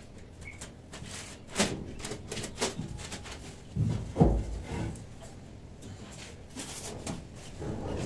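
Scattered light knocks and taps, with a heavier low thump about four seconds in.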